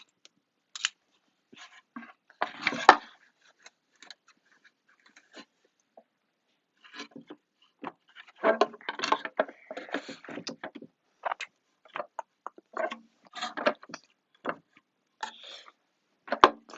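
Fidget toys being handled and packed into a storage container: irregular taps, clicks and rustling of toys knocking against each other and the container, busiest twice in stretches of a few seconds.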